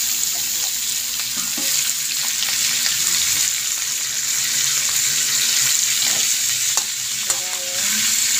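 Chopped chicken intestines sizzling as they fry in hot oil in a metal wok, a steady loud hiss, with a spatula scraping and stirring through them now and then.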